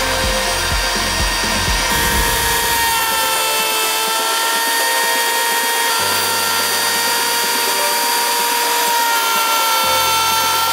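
Table-mounted wood router running at speed and cutting a profile along a wooden strip fed past the bit: a steady high whine that sags slightly in pitch as the bit takes the wood, then recovers.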